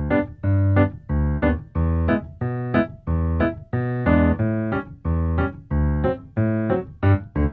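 Background music: a piano-like keyboard tune played in short, evenly spaced notes, about two to three a second.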